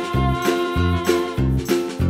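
Background music with a steady beat of short, evenly spaced bass notes under higher melody notes.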